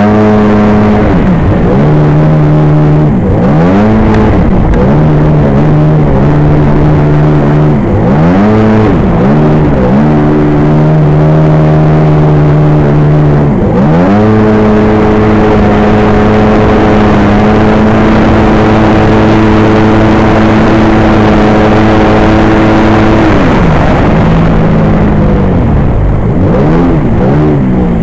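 1994 Sea-Doo personal watercraft's two-stroke engine, running on bare carburettors with no flame arrestor or air box, loud and close. The revs rise and fall repeatedly with the throttle, then about halfway in hold steady and high for about ten seconds before dropping back and varying again.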